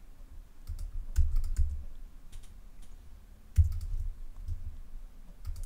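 Irregular clicks from a computer keyboard and mouse, several scattered short taps each with a dull thud, the loudest about three and a half seconds in.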